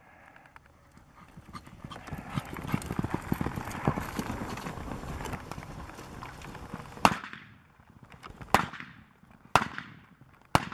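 A horse galloping and turning a barrel in soft arena dirt, a dense run of hoofbeats, then four sharp gunshots about a second apart starting about seven seconds in: blank-loaded single-action revolvers fired from horseback in cowboy mounted shooting.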